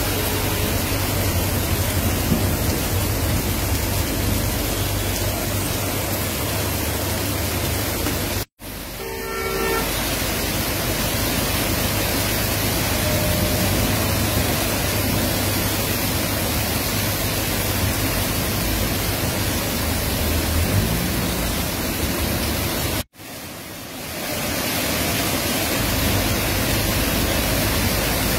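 Heavy rain pouring steadily onto a flooded street, with a low engine hum from vehicles driving through the water. A short car horn toot sounds about nine seconds in, and the sound cuts out sharply twice, at about 8.5 and 23 seconds.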